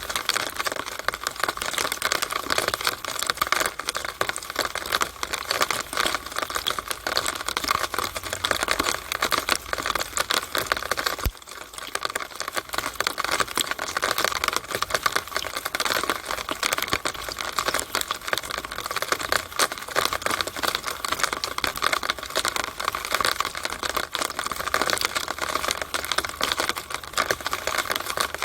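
Rainwater running down a downspout: a dense, steady patter of drips and splashes inside the pipe, briefly dropping away about eleven seconds in.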